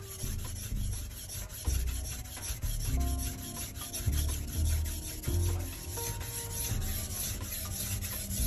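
Steel knife blade scraped back and forth across a whetstone in quick repeated strokes.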